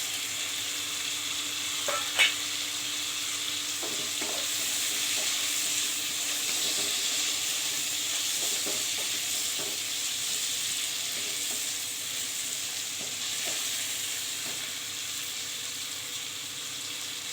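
Onion, tomato and ground spices frying in oil in a pan, a steady sizzle as the mixture is stirred, with a few light knocks and one sharp clink about two seconds in.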